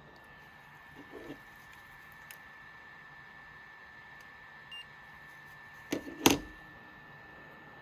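Heat gun running steadily with a thin high whine while it heats a phone's back glass to soften the adhesive. A few light clicks, then two sharp knocks about six seconds in, the loudest sounds.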